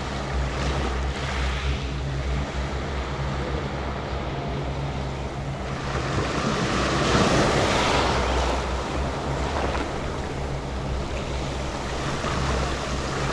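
Small waves lapping and washing up a sandy beach, with wind on the microphone and a steady low hum underneath. A bigger wash swells up about six seconds in and fades a couple of seconds later.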